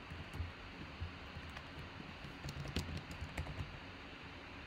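Faint typing on a computer keyboard: a loose run of key clicks, thickest a little past halfway.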